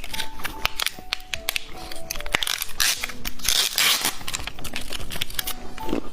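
Soft candy and its wrapping crackling and clicking as they are handled, with a denser stretch of crackling about halfway through, over background music of short held notes.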